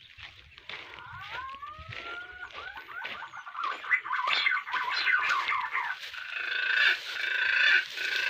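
Birds calling: a few rising whistled notes about a second in, then a dense, rapid chatter of chirps that grows louder toward the end, over footsteps through dry grass.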